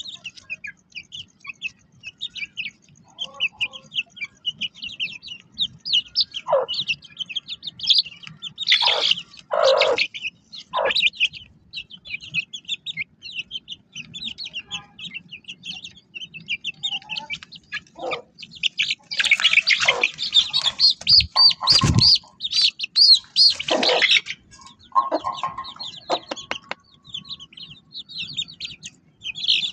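A flock of small aviary birds chirping rapidly and continuously. Louder calls break in around nine to eleven seconds in and again from about nineteen to twenty-four seconds.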